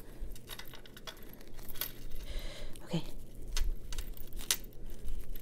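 Small metal jewelry charms and findings clinking together in the hands, a scatter of light irregular clicks and jingles.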